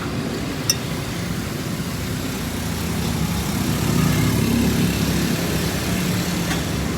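Motor vehicle engine running with a steady low rumble that grows louder around the middle, with one short click less than a second in.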